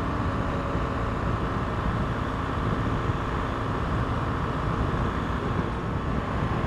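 BMW R 1200 GS motorcycle cruising at motorway speed: its boxer-twin engine runs steadily under wind and road noise.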